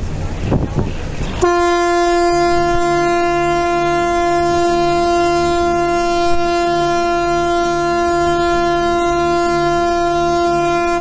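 A ship's horn sounding one long blast at a steady pitch, starting abruptly about a second and a half in and held for over nine seconds.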